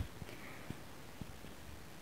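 Quiet room tone with two faint ticks, about a third and two thirds of the way through.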